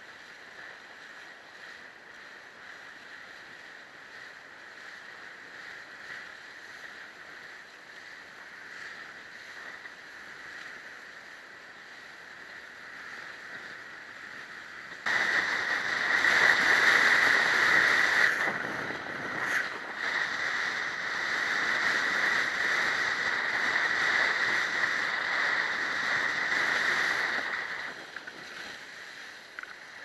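Wind and water rushing past a windsurfing rig as the board sails over choppy water, heard as a steady hiss with wind on the microphone. About halfway through it turns suddenly much louder, and it eases near the end.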